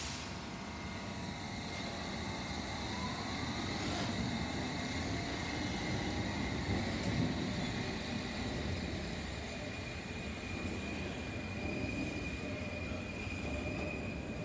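London Underground S Stock train pulling out of the platform, its traction motors whining upward in pitch as it gathers speed over the rumble of its wheels. A steady high squeal from the wheels builds in the second half as the train runs off into the tunnel.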